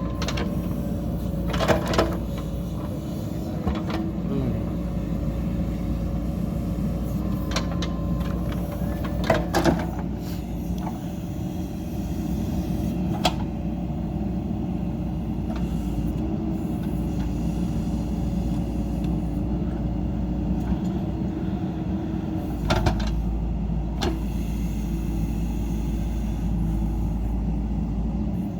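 JCB 3DX Super backhoe loader's diesel engine running steadily as the machine works, with sharp knocks and clanks now and then: several in the first ten seconds and two more after about twenty seconds.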